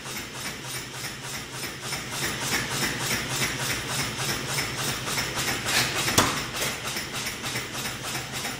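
Massey power hammer's ram striking hot steel in a steady run of blows, about three or four a second, over the constant hum of the machine running. One sharper, louder blow lands about two-thirds of the way through.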